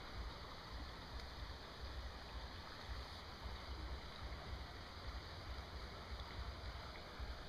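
Shallow river water running steadily, under a low, fluctuating rumble.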